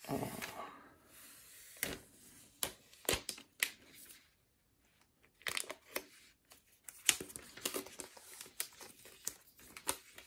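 Protective plastic wrap being peeled off a new iPad and a thin packing sheet handled: intermittent crinkling, tearing rustles and small handling clicks, densest in the first second.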